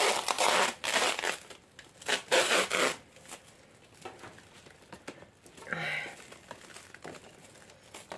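Thin plastic stretch wrap being pulled off its roll and wound around a potted plant, crinkling in two loud bursts in the first three seconds and rustling more faintly after.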